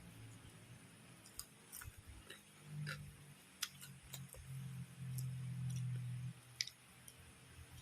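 Close-up eating sounds: crisp fried food such as lumpia and fries being bitten and chewed, heard as a scatter of sharp crunchy clicks. A low humming tone sits underneath for a few seconds in the middle.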